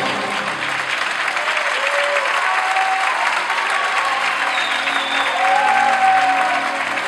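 Audience applauding over the act's music, with sustained melody notes and a low bass line coming in about halfway through.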